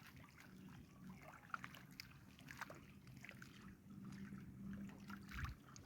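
Near silence: faint outdoor background with a low steady hum and a few scattered light ticks.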